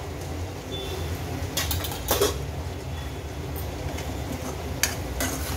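Long steel spoon stirring and scraping thick tomato-onion masala paste in a stainless steel kadhai, with sharp metal clinks from about a second and a half to two seconds in and again near the end, over a steady low hum.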